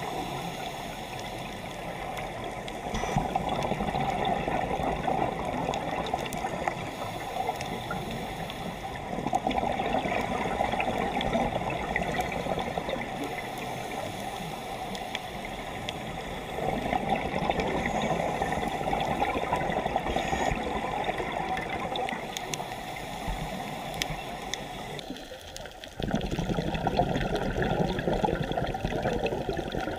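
Underwater sound picked up by a dive camera: a steady watery rush with bubbling surges about every six to seven seconds, in the rhythm of a scuba diver's exhaled regulator bubbles. The sound changes abruptly near the end.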